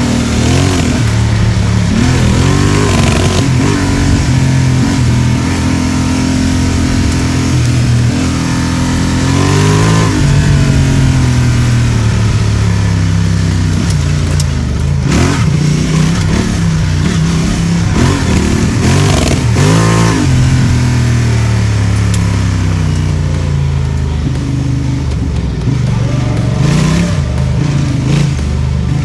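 Parallel-twin adventure motorcycle engine under way off-road, its revs rising and falling and stepping between gears, with wind noise over the microphone.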